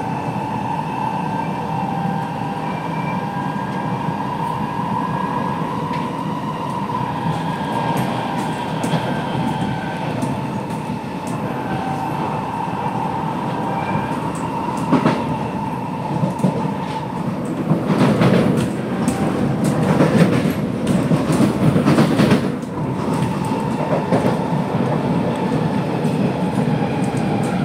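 Onboard a C751B metro train running at speed: a steady whine from its Fuji Electric IGBT-VVVF traction equipment over continuous wheel-on-rail rumble. Past the middle, a stretch of louder rumbling and clatter of wheels over rail joints lasts several seconds.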